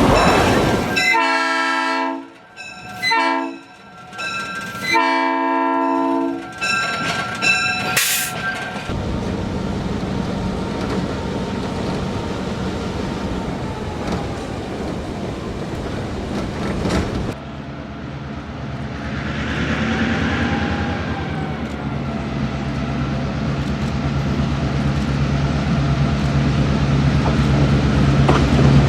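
Diesel locomotive horn sounding several long blasts, then the locomotive running steadily. About two-thirds of the way in, the sound changes abruptly to a low, steady diesel engine drone that slowly grows louder.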